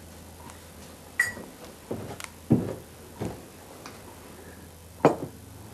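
A handful of separate knocks and clinks from objects being handled, one with a short ringing tone about a second in and the sharpest knocks about two and a half and five seconds in.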